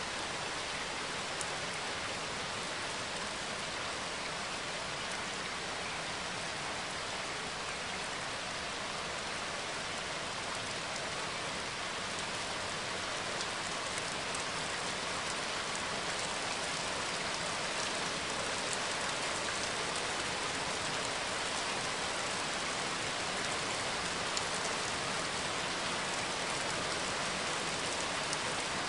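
Steady rain falling in a continuous even hiss, with scattered sharp drop ticks.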